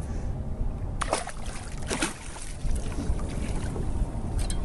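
Water splashing and lapping at the side of a boat, with wind rumbling on the microphone; two louder splashes come about one and two seconds in.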